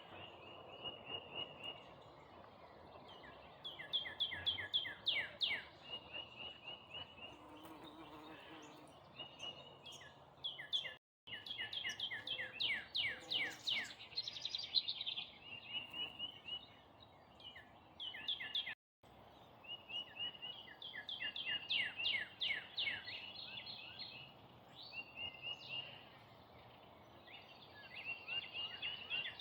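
Songbird singing in phrases of rapid repeated high notes and short trills, over faint steady background noise. The sound drops out briefly twice, about a third and two thirds of the way through.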